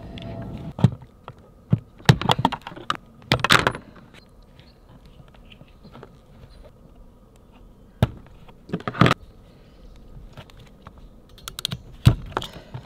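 Sharp clicks and snaps of hand tools working solar cable: stripping the wire and crimping ferrules onto the ends with a ratcheting crimper. They come in scattered groups, about one to four seconds in, again around eight to nine seconds, and in a last cluster near the end.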